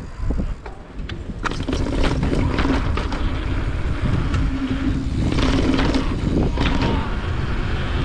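Hardtail mountain bike rolling over stone paving and cobbles: tyre rumble with rattles and knocks from the bike, growing louder about two seconds in as it picks up speed. Wind buffets the bike-mounted action camera's microphone.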